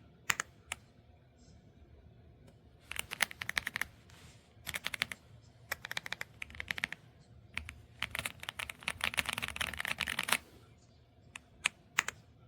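Typing on an EPOMAKER x Aula F75 gasket-mount mechanical keyboard with Ice Vein switches. A few single key presses, then bursts of fast typing, with a longer unbroken run from about eight to ten seconds in, and a few lone presses near the end.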